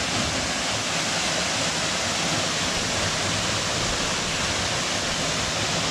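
Summerhill Force waterfall pouring with a steady, even rush of water.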